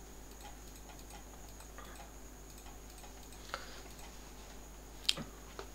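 Computer mouse clicking a few times, the clearest clicks about three and a half and five seconds in, over a faint steady hiss and hum.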